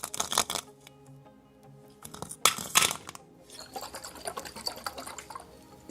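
Background music with loud liquid slurping in two bursts about two seconds apart, then a run of lighter wet clicks.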